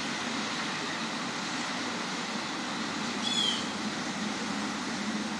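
Steady outdoor background noise with a low hum, and one short high-pitched call, falling slightly, about three seconds in.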